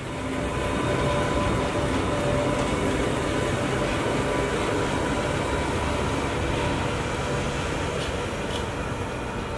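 Two coupled Class 86 electric locomotives running past: a steady rumble of wheels on rail with a steady electric whine in several tones over it, swelling over the first second and then holding.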